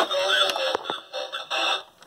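A FunRise toy fire truck's sound chip playing a tinny electronic sound through its tape-covered speaker, with a few sharp clicks, breaking off near the end.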